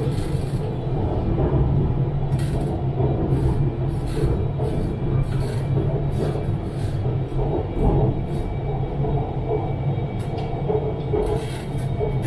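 Hanoi Metro Line 2A train running on its elevated track, heard from inside the car: a steady low rumble and hum, with brief clicks from the wheels and track at irregular intervals.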